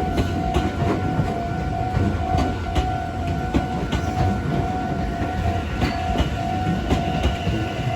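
A Meitetsu Inuyama Line train passes over a level crossing: a steady heavy rumble with wheels clacking over the rail joints several times a second. Over it runs an unbroken steady tone from the crossing's warning bell.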